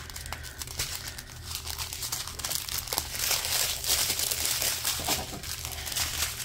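Small zip-top plastic bags of diamond-painting drills crinkling as they are picked up and sorted by hand: a dense run of crackles, busiest about halfway through.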